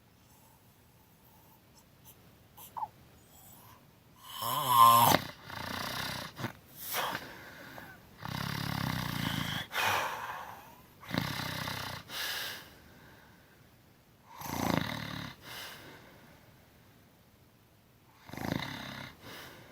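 A woman snoring loudly with her mouth open: after a quiet first four seconds, a string of snores at uneven gaps. The loudest, about four seconds in, has a clear pitch, and a longer one comes around eight seconds in.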